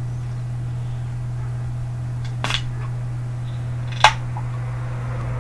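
Two sharp clicks of handling close to the microphone, about two and a half and four seconds in, the second louder, over a steady low hum.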